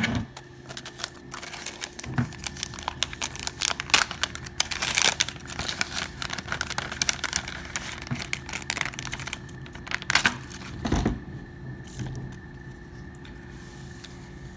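Plastic packaging crinkling and tearing as it is handled and opened: a dense run of irregular crackles and rustles. It stops about eleven seconds in, leaving a faint steady hum.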